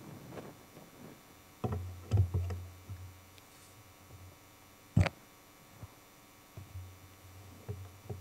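Handling noise from a large lectionary book being laid open and moved on a wooden lectern, picked up through the lectern's microphone: a cluster of thumps with a low boomy rumble, one sharp knock about five seconds in, and a few lighter taps near the end.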